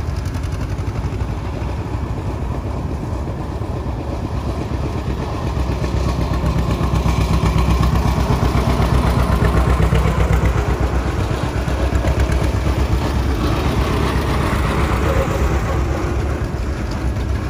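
Antique farm tractor engine running with a low, pulsing exhaust beat as it passes, louder in the middle and easing off near the end.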